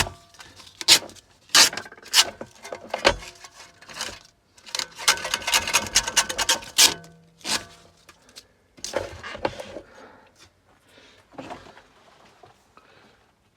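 Handling noises on a workbench: a string of sharp knocks, clicks and scraping as a salvaged motor tool is turned round and set up, thinning out towards the end.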